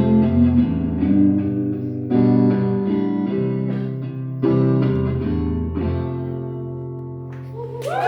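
Solo guitar playing the closing notes of a song without vocals, a few notes or chords struck a second or two apart, the last one left to ring and fade. Audience applause and cheering break out right at the end.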